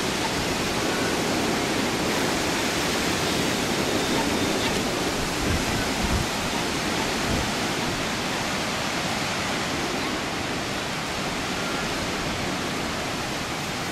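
A steady rushing hiss with an uneven low rumble underneath; no single call, bleat or bark stands out.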